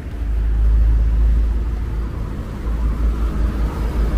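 Road traffic passing close by: a steady low rumble of engines and tyres that swells about half a second in.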